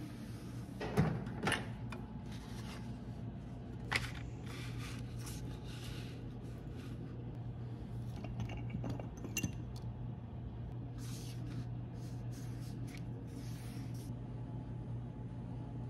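Leatherworking hand tools and leather being handled on a workbench. A few sharp clicks and knocks come as tools are picked up and set down, with rustling and scratching as paper templates are laid on the leather and traced around with a blade. A steady low hum lies under it all.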